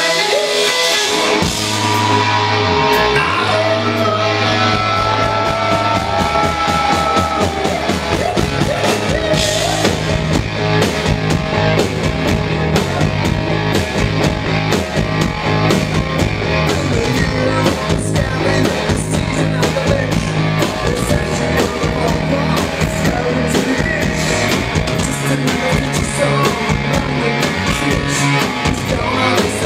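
Live rock band playing loud: electric guitar and bass with long held notes at first, then the drums come in with a steady driving beat about eight seconds in.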